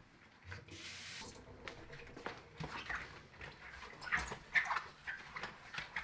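Rubber-gloved hands and a cloth wiping a glass cooktop: irregular short squeaks and rubbing strokes, with a brief hiss about a second in.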